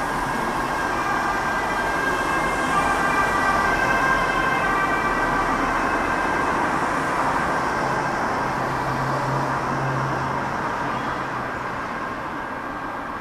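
Boeing 787-8 Dreamliner jet airliner passing overhead at altitude: a steady rushing engine roar with faint whining tones that drift slightly in pitch, swelling a few seconds in and then slowly fading.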